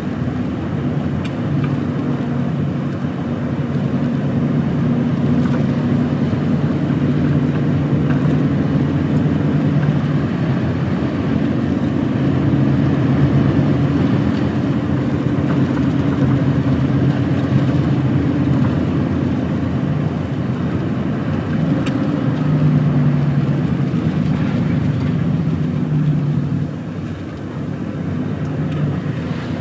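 Heavy truck's diesel engine running on the road: a steady low drone over road noise. The engine note shifts a few times and dips briefly near the end.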